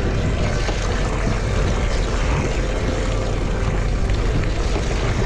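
Steady rush of wind and sea water along a fishing boat's hull, over a low steady rumble.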